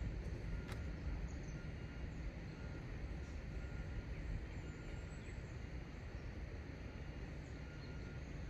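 Outdoor background noise: a steady low rumble, with a faint short high tone repeating roughly once a second.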